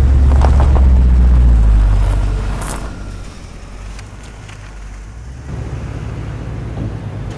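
1996 Buick Roadmaster wagon's cold LT1 350 V8 pulling away, loud for the first two seconds and then fading as the car drives off, with the engine faintly heard again a few seconds later.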